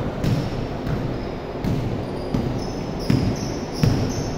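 Basketball being dribbled on an indoor court floor: a thud about every 0.7 seconds.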